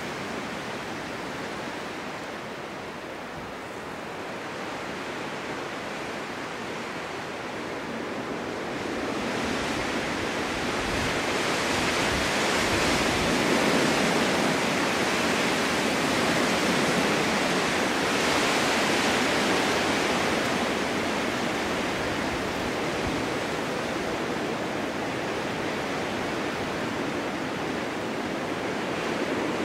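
Snowstorm wind blowing through a snow-covered forest as a steady rush. It swells into a stronger gust about a third of the way in and eases off again over the last third.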